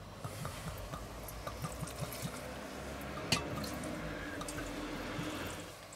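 Whiskey pouring from an upturned square glass bottle into a stainless steel bowl, with a run of short glugs through the first half.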